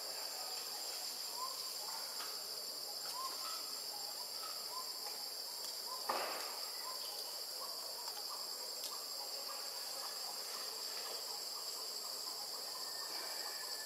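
Steady high-pitched insect chorus, with faint short chirps repeating about once a second. A single sharp noise about six seconds in.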